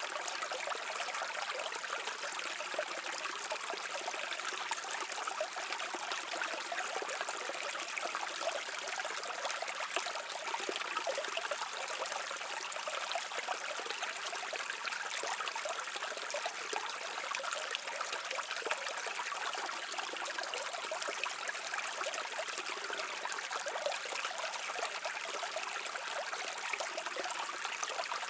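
A brook flowing over stones, a steady babbling and trickling of running water.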